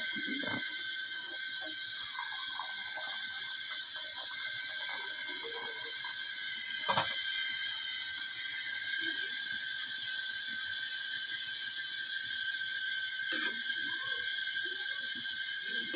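Luchi deep-frying in a pan of hot oil: a steady high sizzle, with two sharp clicks, about seven seconds in and near the end.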